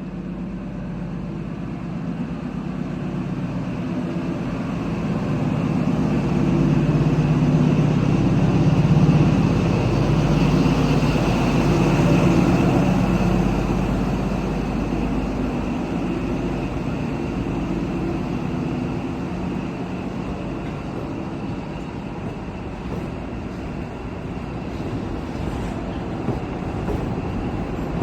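XPT diesel power car running under power as the train departs. The engine drone swells to a peak about ten seconds in, then slowly fades as the train rolls on.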